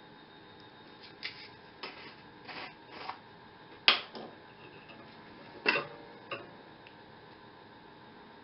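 Light clicks and taps from a plastic flux jar and metal tweezers being handled at a clamped band saw blade joint while flux is applied for brazing. There are about nine of them, the loudest about four seconds in and another just before six seconds.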